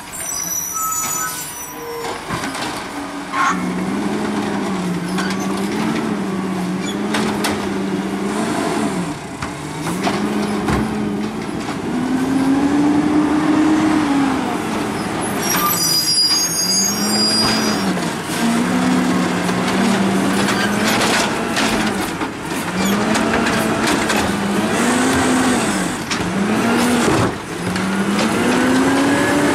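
Natural-gas engine of an automated side-loader garbage truck revving up and falling back over and over as the truck moves along the street. Two short, sharp air-brake hisses, one near the start and one about halfway through.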